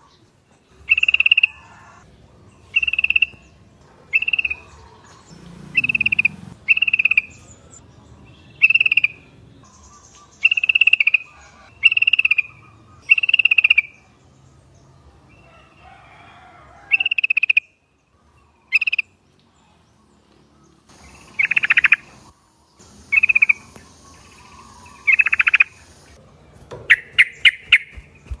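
Yellow-vented bulbul (trucuk) giving short, loud bubbling call notes, about one every second or so, with a few seconds' pause in the middle and a quick chattering run of notes near the end.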